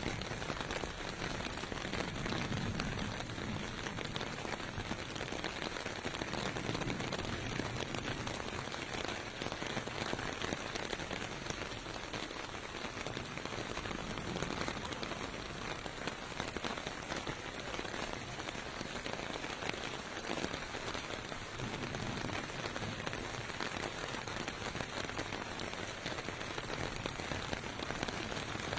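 Steady rain falling on pavement, an even hiss of drops, with a soft low rumble swelling now and then.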